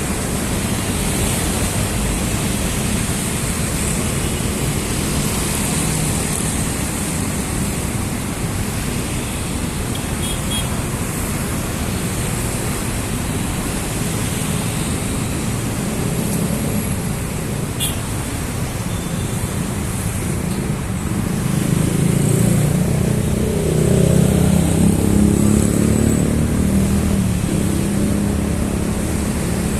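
Steady city road traffic. About two-thirds of the way through, a heavier vehicle's engine grows louder for several seconds, then fades back into the traffic.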